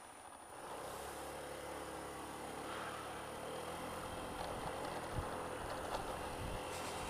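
Honda Dio scooter's engine going from a quiet idle to pulling away about half a second in, running steadily harder as it accelerates, with wind and road noise building and a couple of brief thumps near the end.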